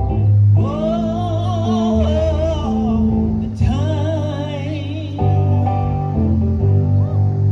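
A woman singing a slow gospel song with vibrato in two long phrases, accompanying herself with sustained chords on a Roland RD-300SX digital keyboard.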